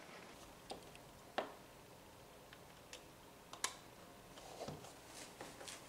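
A few faint, scattered clicks and taps of hands handling a small plastic home camera while plugging its USB power cable into it.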